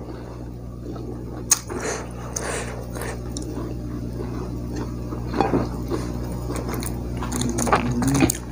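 Close-miked chewing of fried duck and rice: wet, squishy mouth sounds with a few sharp clicks, over a steady low hum.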